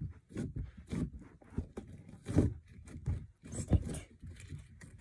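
Hands kneading and squishing a thick, non-sticky glue slime made from clear and white glue, giving irregular wet squelches and slaps. Two louder slaps come about two and a half and nearly four seconds in.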